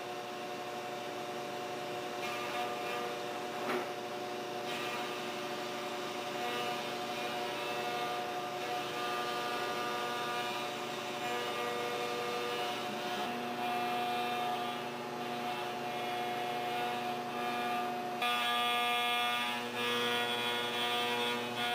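CNC milling machine's spindle and end mill cutting solid aluminium: a steady whine made of several held tones. The tones shift about halfway through, and the cut grows louder and harsher a few seconds before the end.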